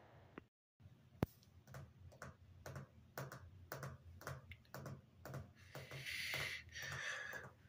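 Film soundtrack sound design: after a brief cut to silence and a single sharp click, quiet irregular ticking, about two to three clicks a second, runs over a soft low pulse, with a hiss building near the end.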